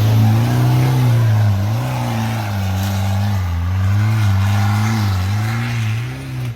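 Toyota Hilux engine pulling under varying load, its pitch rising and falling repeatedly as the revs go up and down, cutting off abruptly near the end.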